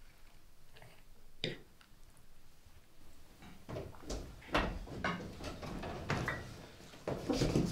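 A door opening and people coming in: a run of knocks and scrapes, sparse at first and busier from about halfway through.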